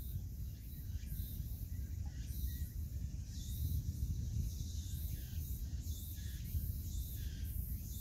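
Wind rumbling on the microphone over a steady high fizzing crackle from the exposed tidal mudflat: bubbles popping in the wet mud and crab burrows.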